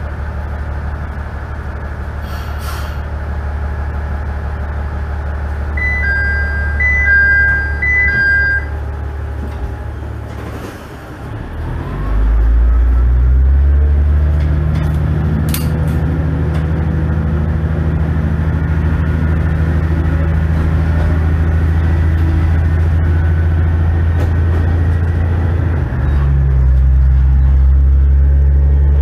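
TH9200 diesel railcar's engine idling at a stop, with a short hiss of air and an electronic chime sounding three times. About twelve seconds in, the engine revs up loud and steady as the railcar pulls away, with one shift in its note near the end.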